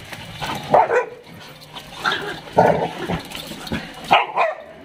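A pack of dogs play-fighting, with several short barks one after another.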